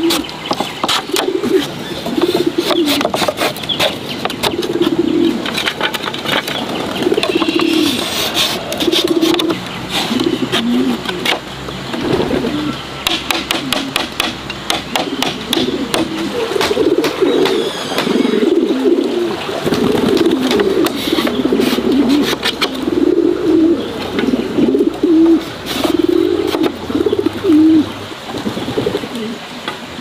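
Doves cooing over and over, with sharp clicks and clatter of split bamboo slats knocking together as they are woven into a lattice.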